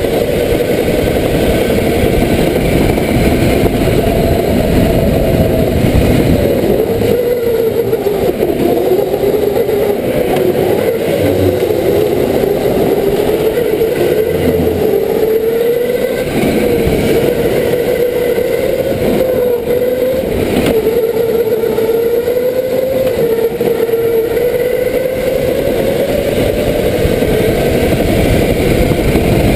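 Go-kart running flat out on a track, heard from on board: its motor's pitch rises and falls with the throttle through the corners, over a steady rush of road and wind noise.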